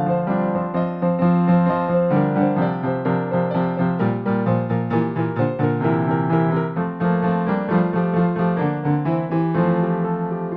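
Background piano music: a steady run of struck notes.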